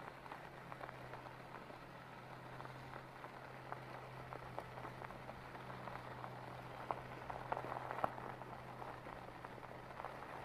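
E-bike tyres rolling over a gravel road: a steady crackle of loose stones with scattered sharper ticks, over a low steady hum.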